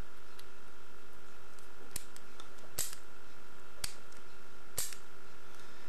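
Squire CP1 combination padlock's number wheels being turned by hand, a few sharp clicks roughly a second apart with fainter ticks between, over a steady faint hum.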